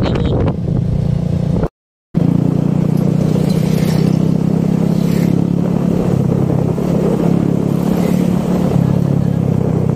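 Engine of the moving vehicle the camera rides on, running steadily at road speed with wind and road noise. The sound drops out briefly about two seconds in.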